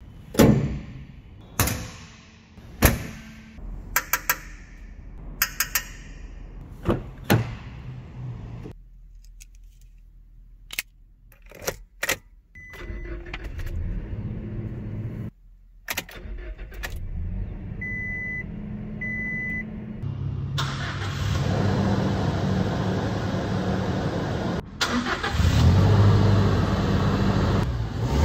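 A run of sharp clicks and clunks as the truck's fuel filler flap and fittings are worked, then a few short dashboard chime beeps. The 2023 Toyota Hilux's 2.7-litre four-cylinder petrol engine starts about halfway through and runs, much louder in the last third and louder still in the last few seconds.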